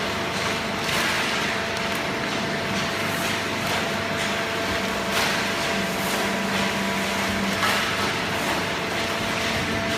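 Hydraulic baling press running: a steady machine noise with a few held humming tones, and occasional knocks.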